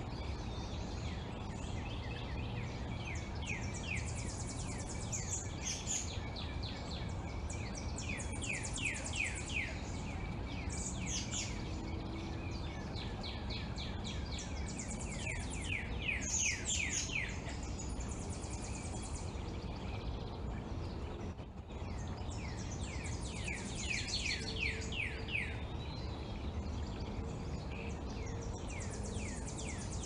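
Small songbirds singing in bursts of quick chirps that slide downward in pitch, recurring every few seconds over a steady low background rumble.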